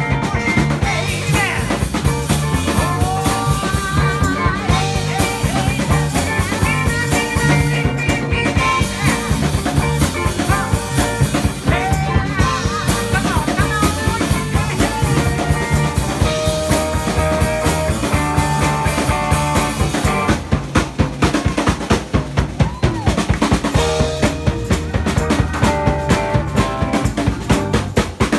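Live rock band playing: electric guitar and bass over a full drum kit with a steady beat. From about two-thirds of the way through, the drums come to the fore with hard, regular hits.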